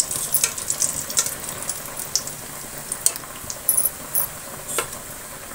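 Besan bhallas frying in hot oil in a karahi, a steady sizzle, with several sharp clicks and scrapes of metal tongs and a wire skimmer against the pan as the fritters are lifted out of the oil.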